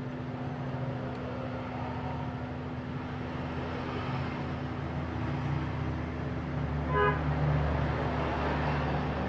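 Steady rumble of road traffic, with a short vehicle-horn toot about seven seconds in.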